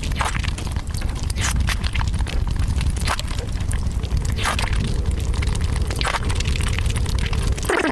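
Close-miked eating sounds: sharp crackling clicks roughly every second and a half over a steady low rumble.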